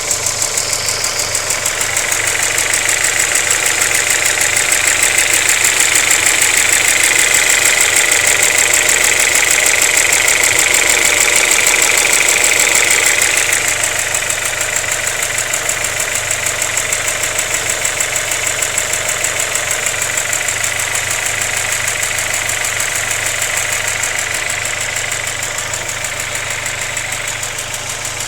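Vauxhall Zafira VXR's 2.0-litre turbocharged four-cylinder engine idling with a fast, steady ticking or tapping running through it. The engine gets a little quieter about halfway through.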